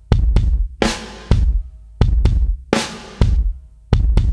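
Background music with a steady, drum-heavy beat: bass drum, snare and cymbal hits.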